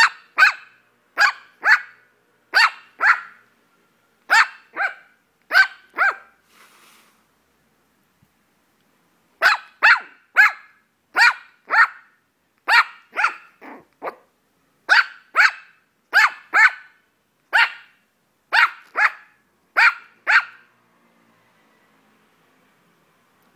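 A two-month-old white puppy barking in high, sharp yaps, mostly in quick pairs. The barking pauses for about three seconds a quarter of the way in, then runs on and stops a few seconds before the end.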